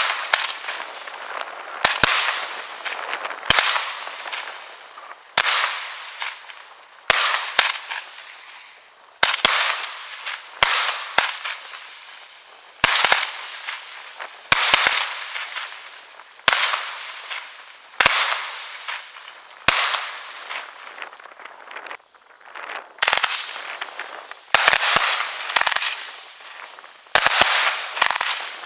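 Aerial fireworks bursting in sharp bangs about every one and a half to two seconds, each followed by a fading crackle. From about two-thirds of the way through, the bangs come faster, several in quick succession.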